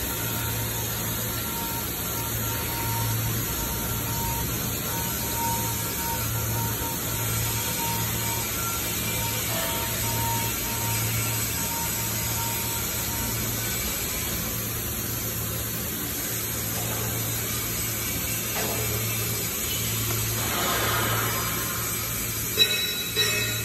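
Steady background hum of a metal fabrication shop, with a pulsing low drone and a faint steady whine. Around twenty seconds in comes a short stretch of arc-welding hiss on the steel workpiece, followed by a couple of sharp metal knocks near the end.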